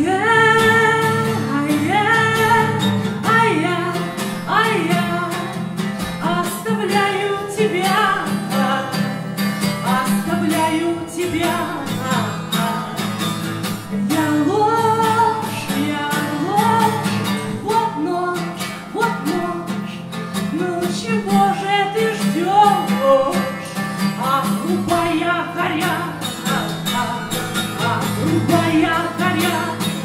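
A woman singing a song, accompanying herself on acoustic guitar.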